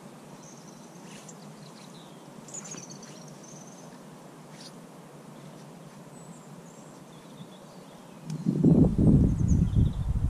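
Small birds chirping faintly now and then over quiet outdoor background. About eight seconds in, a loud low rumble of wind buffeting the microphone for about two seconds.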